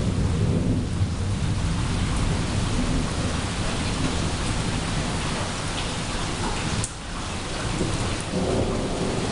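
Thunderstorm: steady rain hiss with a low, rolling rumble of thunder, strongest in the first couple of seconds.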